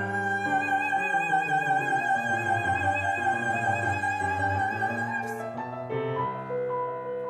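A woman's classical singing voice holds one long high note with vibrato over grand piano accompaniment. The note ends about five seconds in, and the piano plays on alone with a repeated note.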